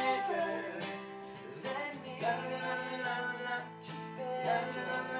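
Male vocal group singing in close harmony, with long held notes, over a strummed acoustic guitar.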